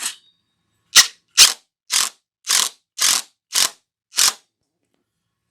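Cordless drill driver tightening a mounting screw into hard wood in short trigger pulls: seven sharp clicking bursts, about two a second.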